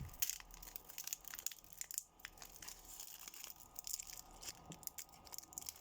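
Faint crinkling and tearing of a foil Pokémon booster pack wrapper being worked open, many small irregular crackles, the pack tightly packed.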